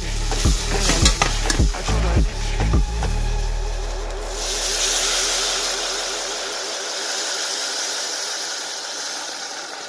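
A metal slotted spoon scrapes and knocks against a stainless steel saucepan as onions are stirred in a flour roux. About four seconds in, water poured into the hot pan sets off a loud sizzling hiss of steam that slowly dies away.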